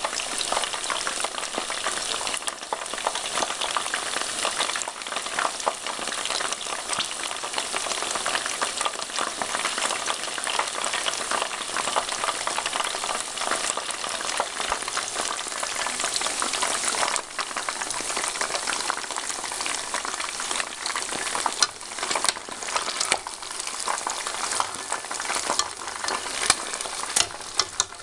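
Chicken wings deep-frying in hot oil in a wok: a steady, dense sizzle full of small pops, with a few louder sharp cracks in the second half.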